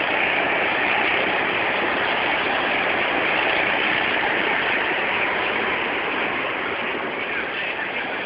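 Go-kart engines running: a steady rushing drone with no clear pitch, easing off slightly near the end.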